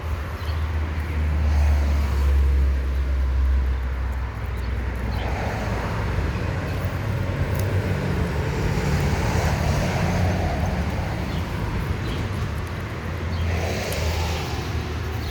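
Road traffic passing: motor vehicles driving by, with a deep engine rumble strongest in the first four seconds.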